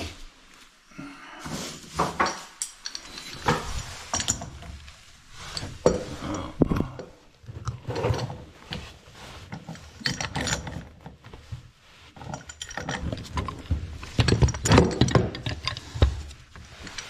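Threaded gas pipe fitting being cranked tight with a pipe wrench: irregular metallic clicks, scrapes and knocks as the wrench grips, turns and is reset on the pipe, busiest near the end.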